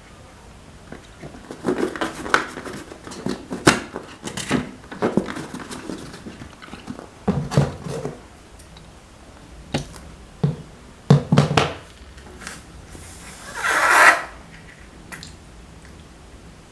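Slime and balloons being handled: irregular sticky squishes, clicks and pops. About thirteen seconds in, a hissing rush swells and then cuts off suddenly.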